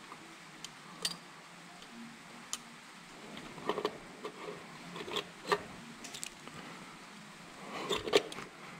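Scattered small metallic clicks and clinks of an RGV250 cassette transmission's gear shafts being worked by hand into the engine cases and meshed with the oil pump drive, with a louder cluster of clicks near the end.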